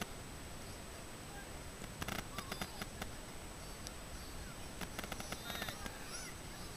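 Open-air sideline noise at a youth flag football game: two quick clusters of sharp clicks or claps, about two and five seconds in, and faint short shouts near the end.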